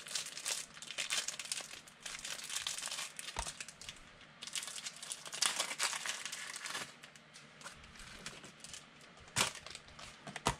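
Crinkling and tearing of plastic packaging as a pack of trading-card sleeves is opened by hand, in irregular bursts, with one soft knock about a third of the way in.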